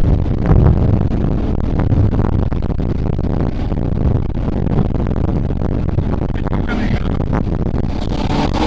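Performance powerboat's engines running at speed, with heavy wind noise buffeting the microphone.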